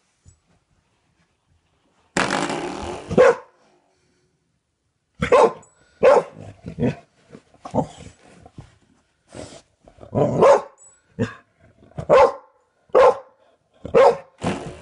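Large dog barking at a spring doorstop, about a dozen barks coming roughly once a second, after one longer drawn-out sound about two seconds in.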